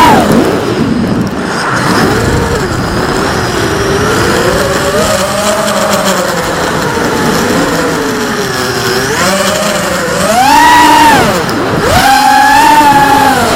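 Racing quadcopter's Cobra 2100kV brushless motors spinning DYS 5x4.5 three-blade propellers, a whine whose pitch rises and falls with the throttle. It stays low and wavering for most of the time, then climbs steeply to a high pitch twice near the end as the throttle is punched.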